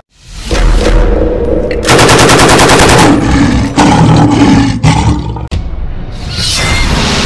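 Logo-reveal sound effects: a brief swell, then a burst of rapid machine-gun fire lasting about a second, followed by a couple of heavy hits.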